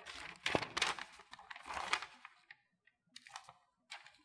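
Plastic 3x3 speedcube being turned: a dense run of quick clicking and rattling turns for about two seconds, then a few scattered single clicks.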